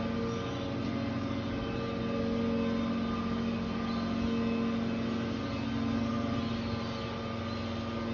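A steady mechanical drone holding a constant pitch, swelling and easing slightly in loudness every couple of seconds.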